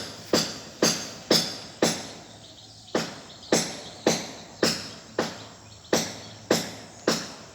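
A steady run of sharp strikes or knocks, about two a second, each dying away quickly, with one brief pause a little over two seconds in.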